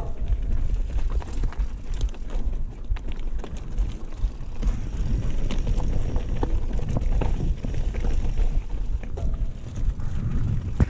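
Mountain bike riding down a rocky dirt trail: tyres rolling over loose stones with frequent small clicks and knocks from the bike rattling, under a constant low wind rumble on the microphone.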